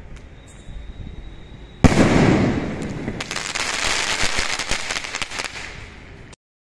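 A 2-inch sky shot aerial shell climbing with a faint steady high tone, then bursting with one loud bang about two seconds in, followed by several seconds of dense crackling from the star effects. The sound cuts off suddenly near the end.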